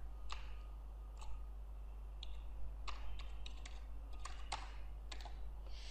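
Scattered, irregular clicks of computer keyboard keys, about a dozen, over a steady low electrical hum.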